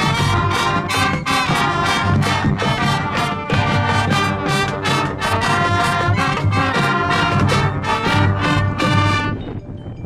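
High school marching band playing a loud brass passage over a steady drum beat, cutting off sharply about nine seconds in, after which only a few quieter sustained notes remain.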